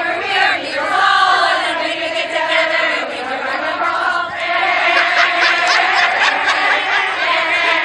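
A group of women's voices chanting and singing together; about four seconds in it swells into louder group shouting and cheering.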